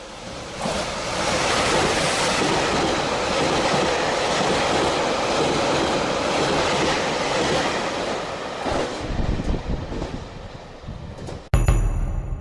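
Train running on rails with wheel clatter. It swells quickly about half a second in, holds steady, then fades away near the end, where the sound cuts off abruptly.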